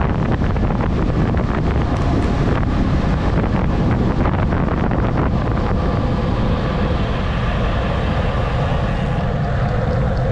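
Heavy wind buffeting on the microphone at descending speed: a loud, steady rumble. About six seconds in, a steady droning hum joins it.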